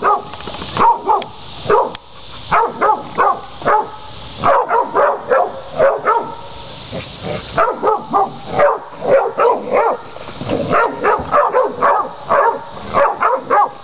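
Catahoula cur dogs baying hogs: rapid, repeated barking, several barks a second, with a short lull about two seconds in.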